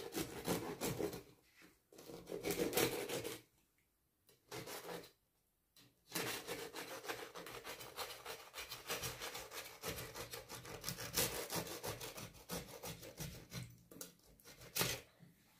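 Crisp, freshly baked bread crust being sawn and scraped with a knife: rough rasping in quick, irregular strokes, pausing briefly twice about four to six seconds in.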